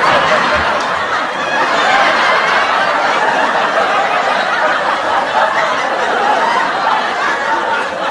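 A group of people laughing together, many chuckles and giggles overlapping in a steady, unbroken stream.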